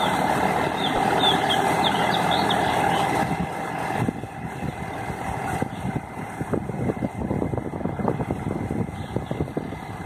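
Mahindra tractor's diesel engine running steadily as it pulls a rotary tiller through a flooded paddy field. The sound drops about four seconds in and turns rougher, with irregular crackle over the engine hum.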